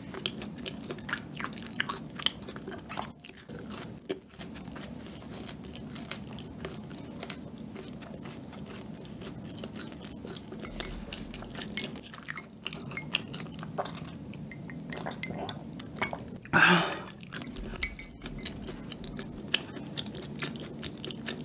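Close-miked chewing with small crunches: a mouthful of cucaron, a macaron with a crisp cookie base and chewy filling, chewed with the mouth closed. One louder brief noise comes about sixteen seconds in.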